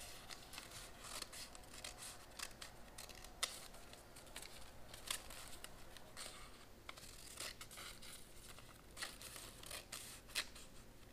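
Scissors snipping through folded copy paper: a string of faint, irregular blade snips as a straight slit is cut.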